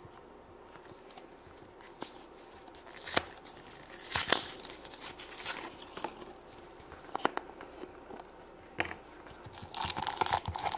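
Small plastic toy jar handled, with scattered clicks and knocks as its plastic screw lid is twisted off, then a crinkly wrapper rustling as it is pulled out of the jar near the end.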